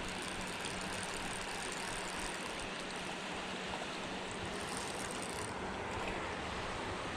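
Steady rushing of a shallow mountain trout stream running over rocks.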